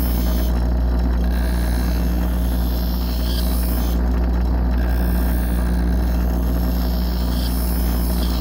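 Bench grinder running with a steady electric-motor hum while a hoof knife is passed across its rubber wheel; the high hiss of blade on wheel drops out briefly about a second in and again about four seconds in.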